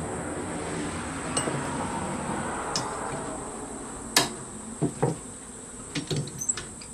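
A hand file rasping along the edge of a steel sword blade, taking down the high points. About four seconds in, the filing stops and several sharp metallic clinks and taps follow. A steady high insect drone runs underneath.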